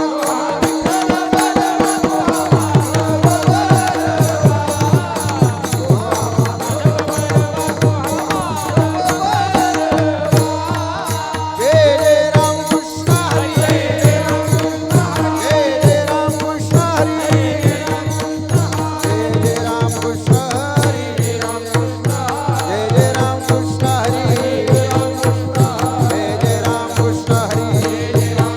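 Kirtan accompaniment music: a sustained drone and a sliding melody over a steady rhythm of drum strokes and small cymbals, with the drum strokes coming in about two seconds in.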